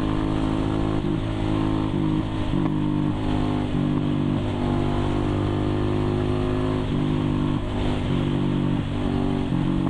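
Sport motorcycle's engine running while riding at road speed, heard from the rider's position. The note is steady with brief dips in pitch every second or so as the throttle is eased and reopened.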